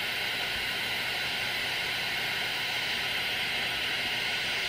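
Small handheld jewelry torch burning with a steady hiss of its flame while it heats a paper clip for soldering.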